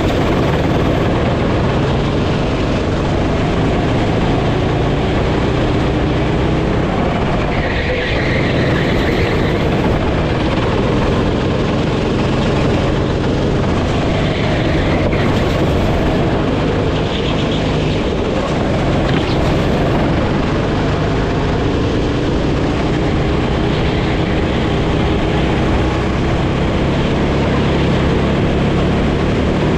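Sodi racing kart's single-cylinder engine at full racing pace, heard close from the driver's seat, its pitch rising along the straights and falling back through the corners.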